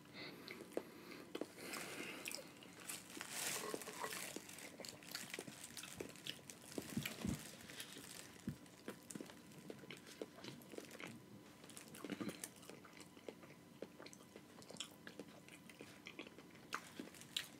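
Close-miked eating of a seafood boil: faint chewing and biting, with many small crunches and clicks scattered through.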